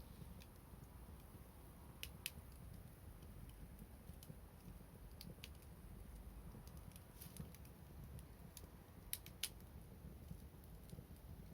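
Wood fire crackling faintly, with scattered sharp snaps and pops over a low steady rumble; a pair of louder pops comes about two seconds in and another pair about nine seconds in.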